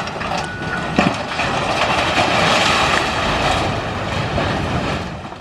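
Building demolition: heavy machinery running with crunching, grinding debris noise, a sharp knock about a second in and a short beep just before it.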